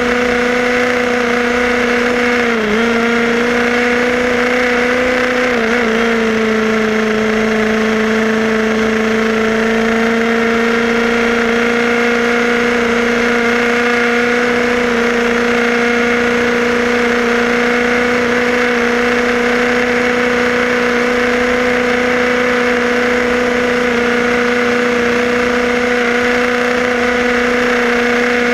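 Tamiya radio-controlled buggy running at speed, its motor and gears giving a steady whine over road noise. The pitch dips briefly twice in the first six seconds, then holds level.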